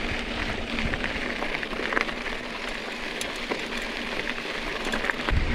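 Mountain bike tyres rolling over a loose gravel road: a steady crunch of stones with many small sharp ticks.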